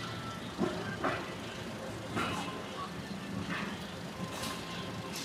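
A portable generator running with a steady hum, with several irregular knocks and clatters over it from temporary tents being taken apart.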